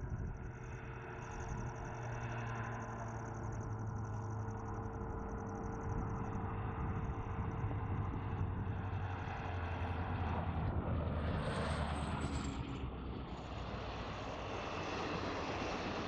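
WDP4B diesel-electric locomotive's EMD two-stroke engine running with a low, steady drone as it hauls an express train toward the listener, growing louder. About eleven seconds in a brief louder rush of rail and wheel noise comes through.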